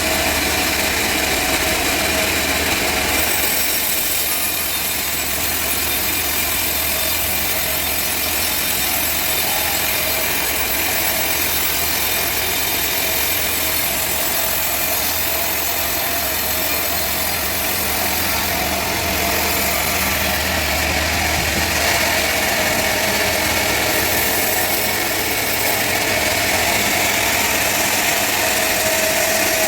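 Sawmill saw cutting steadily through a trembesi (rain tree) log, over the low drone of the mill's engine.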